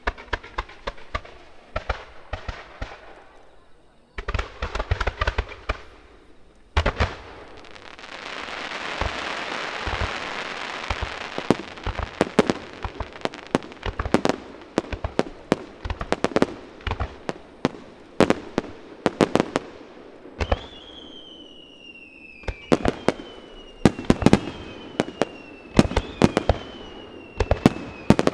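Fireworks display: a rapid barrage of shell bursts, many sharp bangs in quick succession. A hissing swell builds and fades about 8 to 12 seconds in, and from about 20 seconds in several falling whistles sound over the bangs.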